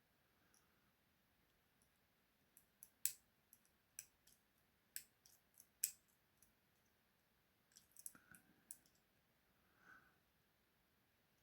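Light, scattered clicks of wire picks working inside a British two-lever padlock, irregular and unhurried, with the sharpest about three and six seconds in and a quick cluster around eight seconds.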